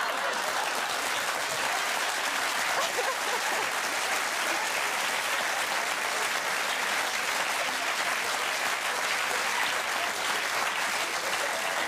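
Studio audience applauding steadily: many people clapping at once.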